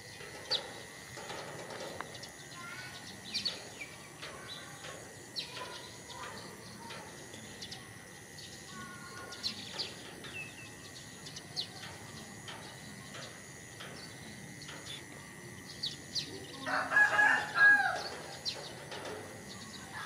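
Outdoor ambience with small birds chirping in short calls throughout, and a rooster crowing once near the end, the loudest sound.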